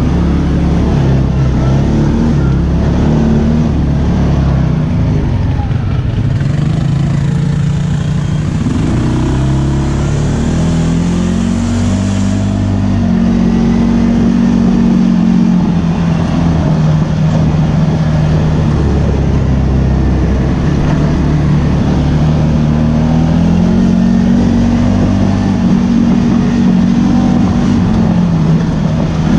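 ATV engine running through the ride, its pitch rising and falling as the throttle opens and closes.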